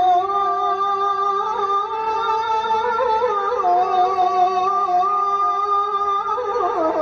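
A man's voice chanting an Islamic prayer (dua) in long held notes, wavering through ornamented turns and shifting pitch between sustained phrases.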